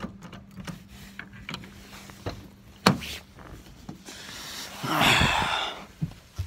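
Pickup truck door opened and someone climbing into the cab: a sharp click about three seconds in, then rustling and scraping of clothing and seat near the end.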